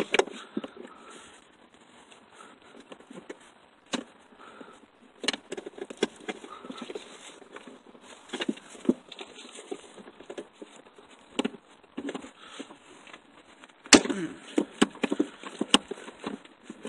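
Metal hand tools clinking, clicking and scraping as a socket, extensions and a universal joint are fitted onto a ratchet and worked on a nut. Irregular sharp clicks are scattered throughout and come thickest near the end.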